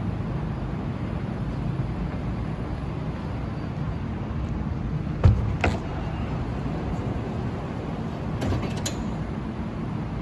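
CAF Urbos tram door being opened: a sharp knock and a click about halfway through as the door button is worked, then a cluster of clicks as the door mechanism releases and the doors open, over the steady hum of the standing tram.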